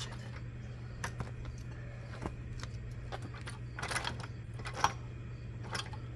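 Scattered metallic clinks and knocks while a heavy car bumper is handled and worked into place, the loudest about four and a half seconds in, over a steady low hum.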